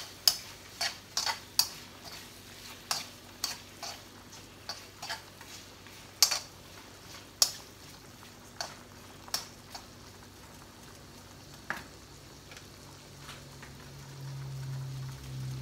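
Metal tongs clacking against a metal wok as shrimp are stirred and turned, frying in butter with a faint sizzle underneath. The clacks come about twice a second at first, then more sparsely. A low hum comes in near the end.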